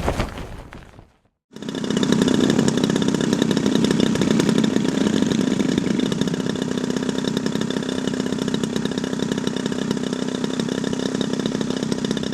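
Small model-airplane engine running steadily with a buzzing, chainsaw-like note, starting abruptly after a short gap. Music fades out at the start.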